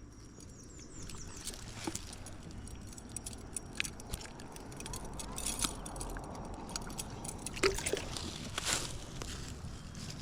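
Creek water running steadily, with scattered light clicks and knocks throughout and a couple of sharper ones near the end.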